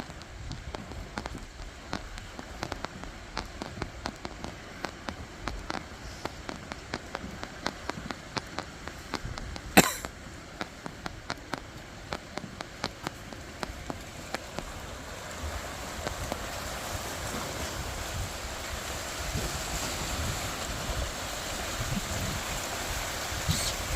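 Seaside wash of waves and wind with many small irregular taps and clicks over it and one sharp knock about ten seconds in; the wash grows steadily louder through the second half.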